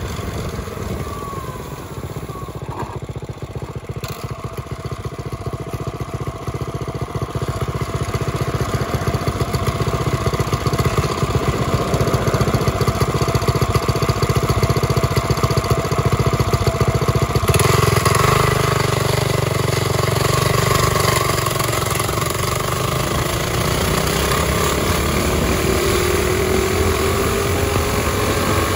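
Mini bike's small engine running while riding, then revving up with a rising pitch as it accelerates near the end.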